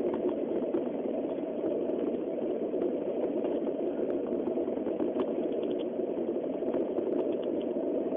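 Steady running noise of a Tokaido Shinkansen Nozomi train at speed, heard inside the passenger cabin. A few faint ticks come about five seconds in and again near the end.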